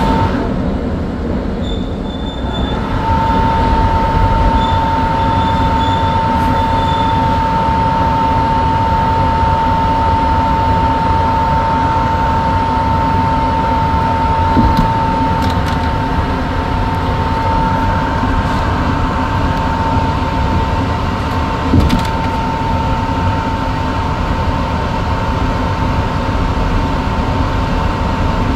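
New York City Subway 1 train (R62A cars) in the tunnel: a steady rumble with a constant high-pitched whine over it. The whine drops out briefly about two seconds in and then holds, and a short knock sounds about three quarters of the way through.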